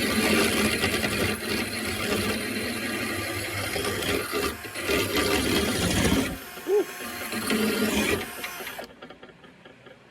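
Electric drill spinning a lawnmower-blade sharpening stone that is ground against a steel mower blade. It stops briefly about six seconds in, runs again, then stops about a second before the end.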